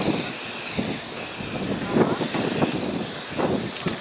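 Aerosol spray paint cans hissing as paint is sprayed onto a board, with irregular background voices.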